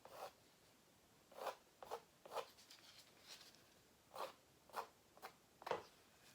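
Faint, short scraping strokes, about eight of them, like something being drawn across a surface: paint being worked out into the corners of a canvas.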